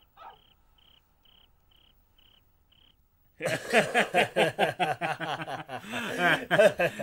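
Faint cricket chirping, about two short high chirps a second, for the first three seconds. Then, about halfway through, two men break into loud, hearty laughter that continues to the end.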